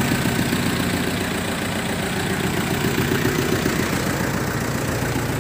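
Jeep engine idling steadily.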